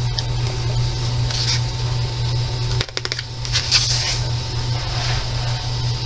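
Paper rustling and sliding as a page of a large paperback coloring book is turned and smoothed by hand, in a few short swishes, over a steady low hum.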